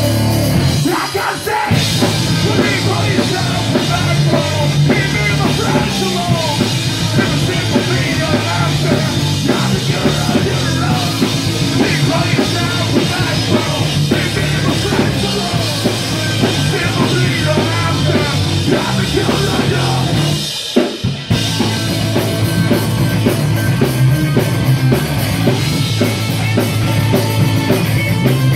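Live punk rock band playing loud: distorted electric guitar, pounding drum kit and a singer shouting into the microphone. The band stops dead for an instant twice, about a second in and about two-thirds of the way through, then crashes back in.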